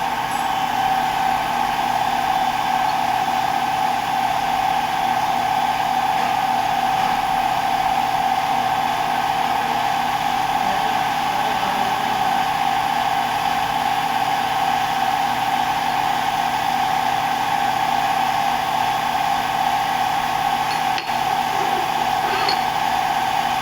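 Machine tool running steadily with a constant high whine, typical of a CNC machine machining a steel pin.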